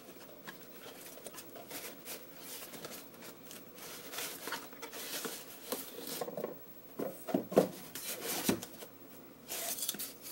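Cardboard packaging rubbing and scraping against foam packing peanuts as a boxed model is pulled out of a shipping carton. There are a few louder knocks about seven to eight and a half seconds in.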